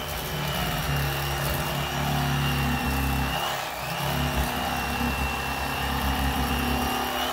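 Electric fillet knife running as it saws through a crappie, a steady motor buzz that falters briefly about three and a half seconds in and then picks up again.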